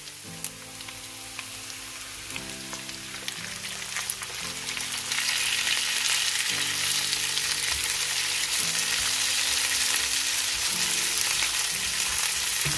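Cubed liver sizzling in hot oil with sliced onions in a nonstick frying pan, stirred with a plastic slotted spatula that clicks lightly against the pan. The sizzle jumps louder about five seconds in, as the liver meets the hot oil, and stays steady after that. Soft background music plays underneath.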